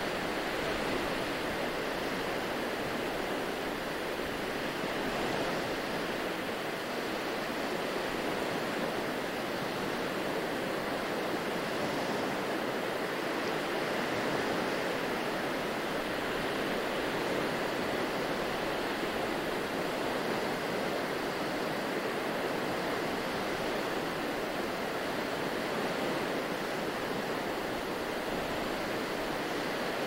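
Small ocean waves washing onto a sandy beach: a steady rushing hiss of surf that swells only slightly.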